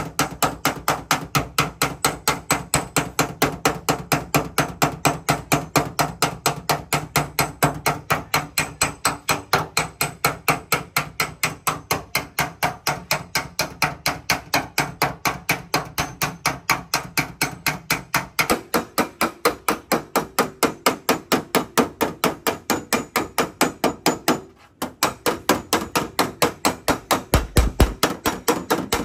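Rapid, steady hammer blows on a car door's sheet metal, about four to five a second, as a dent is beaten out. The ring of the blows changes about two-thirds of the way through, with a brief break shortly after.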